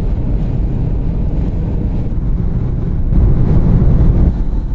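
Road and wind noise of a car driving at motorway speed, heard from inside the car as a steady rumble with hiss. It swells briefly about three seconds in.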